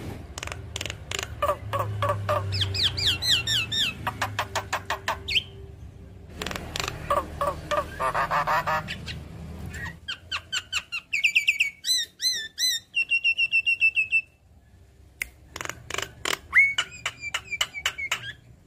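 Javan myna singing a varied, busy song: fast trains of clicks, repeated whistled notes that bend and rise, and a burst of harsh chatter about halfway through. The song breaks off for about a second near three-quarters of the way through, then resumes with clicks and a held whistle.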